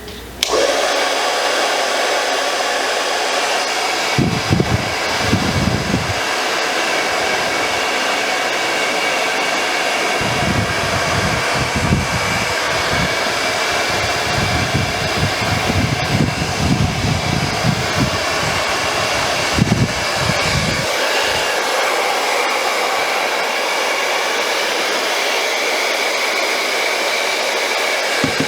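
Handheld blow dryer switched on and running steadily, blowing hot air over a plastic sole protector to soften it for molding onto a sneaker sole. Low rumbling gusts come and go in the airflow for a couple of seconds about four seconds in and again for about ten seconds from the ten-second mark.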